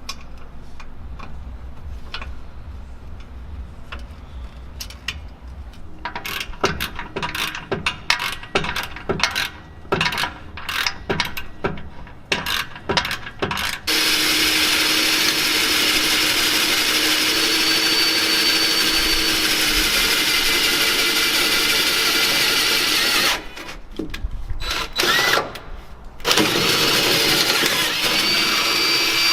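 Metal tool knocks and clanks while the exhaust is fitted, then a power drill running steadily for about nine seconds. More clanks follow, and the drill starts again near the end, drilling a small hole to mount the aftermarket muffler.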